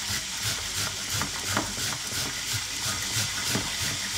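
Onion being grated on the fine side of a metal box grater into a plastic bowl: repeated rasping strokes, about three a second. Under it runs the steady sizzle of peppers frying in a lidded pan.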